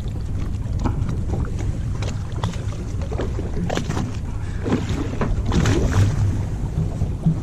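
Steady low rumble of a fishing boat at sea, with wind buffeting the microphone and scattered small knocks and clicks of gear being handled on deck.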